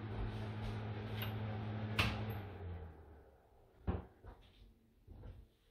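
A steady electrical hum, like a small fan motor, that stops with a sharp click about two seconds in and dies away over the next second. A single knock follows about a second later.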